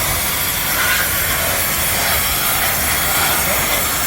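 A loud, steady hiss that spreads across all pitches, strongest in the high end, with no breaks.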